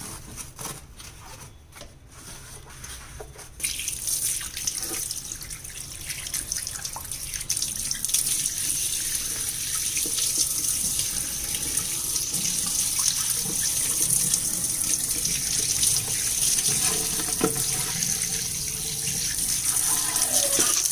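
Tap water running at a sink, splashing onto a fridge shelf being rinsed. It starts about four seconds in, after some quieter rubbing and knocking, and gets stronger a few seconds later.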